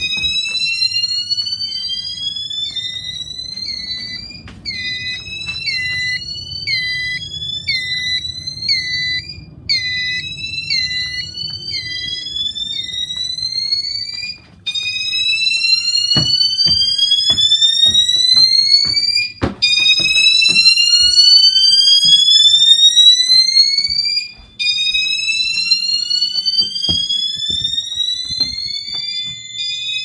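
Fire alarm horns (Gentex Commander 3) sounding a slow whoop, a rising sweep about five seconds long that repeats after a short break. For the first dozen seconds a second sounder adds quick chirps about twice a second.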